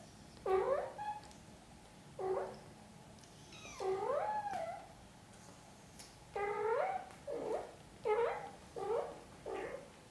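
Cat meowing: a series of about eight short meows that rise and bend in pitch, one longer drawn-out meow about four seconds in.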